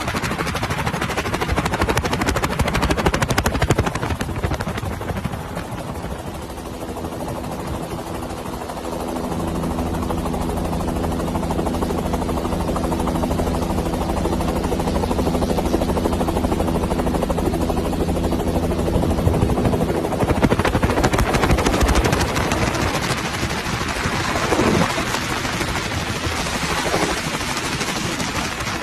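Helicopter flying, its rotor and engine running steadily with a rushing noise. A steady pitched hum rides on it through the middle and drops away about two-thirds of the way in.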